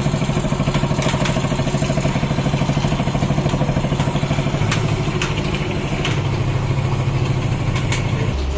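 Hero Super Splendor's single-cylinder four-stroke engine, freshly rebuilt with a rebored cylinder and new piston, running at idle with an even pulsing beat. Its speed drops a little in steps during the second half, and there are a few light clicks over it.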